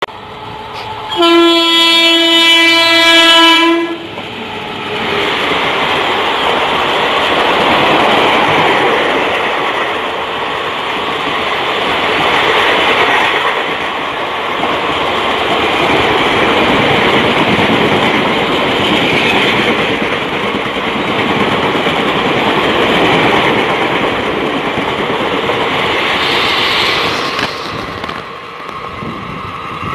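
An Indian Railways express locomotive sounds one long air-horn blast about a second in. Then its rake of coaches passes close by, a steady loud rushing and rail noise that thins out near the end as the train draws away.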